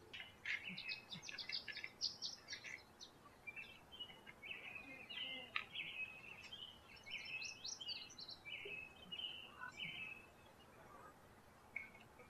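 Wild songbirds singing: a quick run of high chirps, then warbling phrases, dying away near the end.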